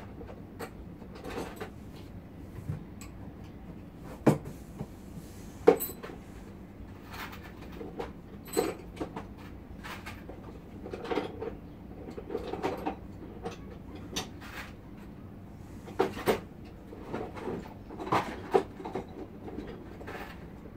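Irregular knocks, clunks and clattering of objects being handled and set down, with a few sharper knocks about four and six seconds in and again around sixteen and eighteen seconds.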